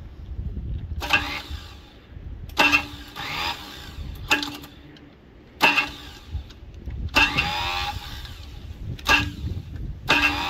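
Ford Cortina's 2.3 V6 being cranked by its starter motor in about seven short bursts, without the engine catching. The owner takes the slow cranking for a starter motor too weak to spin the engine fast enough.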